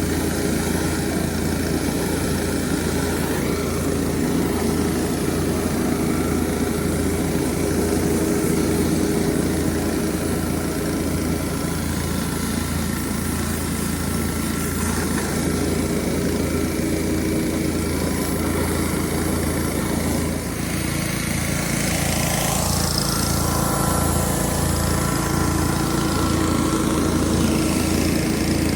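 An engine running steadily, its note shifting about twenty seconds in.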